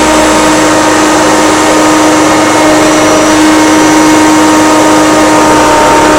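Hoover Turbopower Freedom upright vacuum cleaner running on speed 2 as it makes a pass over salt on carpet, its motor and brushroll giving a loud, steady whine. Its filter is choked with flour.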